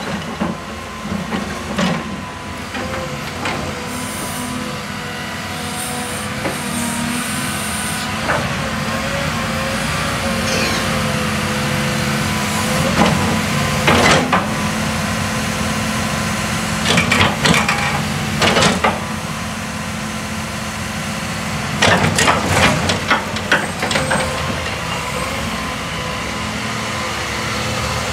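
Caterpillar 312E excavator's four-cylinder diesel running steadily with a constant whine while the boom, bucket and upper structure are worked. Sharp knocks come in clusters about halfway through and again near the end.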